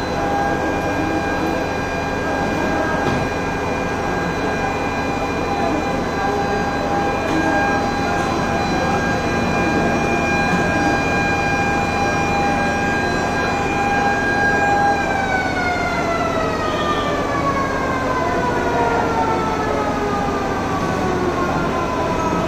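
Fire engine siren holding one steady high tone, then about fifteen seconds in starting a slow, drawn-out slide down in pitch as it winds down, over a steady rushing noise.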